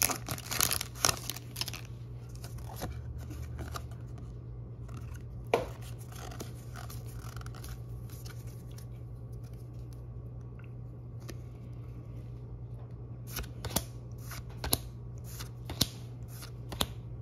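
Foil booster pack crinkling as it is torn open, then Pokémon trading cards sliding and snapping against one another as they are flipped through, a run of sharp clicks near the end.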